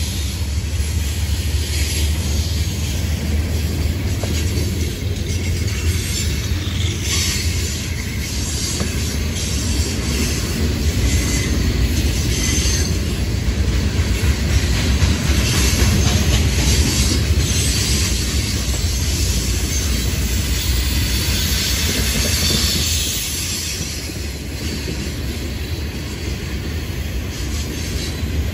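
Freight train rolling by on the rails: a steady low rumble with wheels clicking irregularly over rail joints, easing off a little in the last few seconds.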